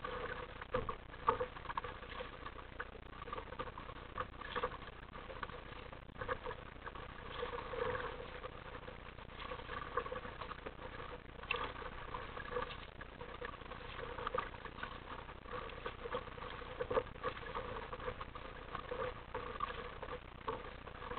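Water splashing and lapping against the plastic hull of an RTM Mambo sit-on-top kayak as it moves through light chop. It makes an irregular patter with frequent short, louder splashes, heard close up at the bow.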